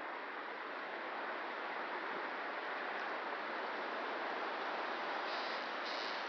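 Strong wind rushing through the trees of a woods in a windstorm: a steady, dense rush of noise.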